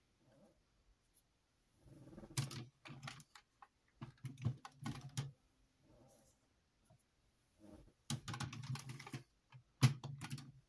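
Clicking and rattling of the hard plastic parts of a Zoids Iron Kong model as it is handled and its limbs are repositioned, in several short bursts with pauses between.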